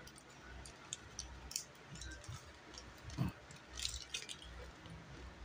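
Faint crackling of a plastic snack bag and crunching of Ding Dong mixed nuts being picked out and chewed: scattered small sharp clicks, with a short low sound about three seconds in.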